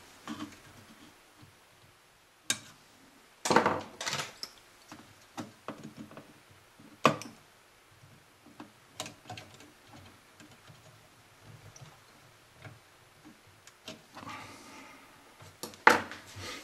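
Small, irregular clicks and taps of hand tools and wire capacitor leads against the metal receiver chassis and a tube-socket terminal as a new capacitor lead is hooked on during re-capping, with a few sharper clicks among fainter ones.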